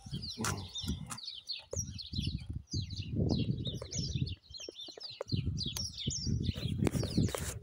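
Small songbirds chirping and singing, with many short calls overlapping throughout, over an irregular low rumble and a sharp click near the end.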